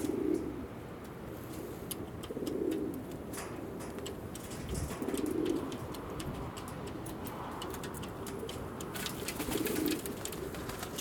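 Altambasi pigeons cooing: four low coos a few seconds apart.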